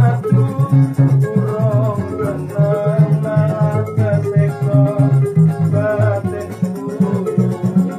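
Keroncong-style band music: small strummed cak and cuk lutes over a stepping bass line from a plucked cello, with a wavering melody line above.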